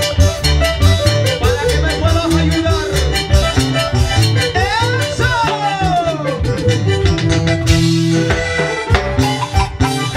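Live huayno band playing an instrumental passage: electric bass, keyboard, guitar and drum kit on a steady dance beat, with a lead melody that slides up and down in pitch.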